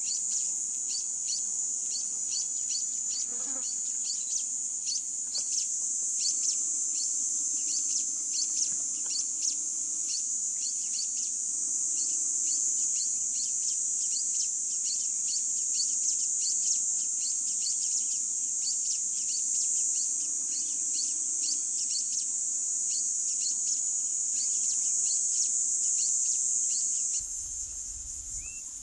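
Insects keeping up a steady high-pitched drone in the bush, with a quick run of short chirps over it. Near the end the sound shifts and a low rumble comes in.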